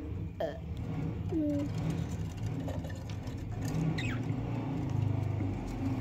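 Caged pet birds, a budgerigar among them, give a few short falling chirps about half a second, one and a half and four seconds in, over a steady low hum.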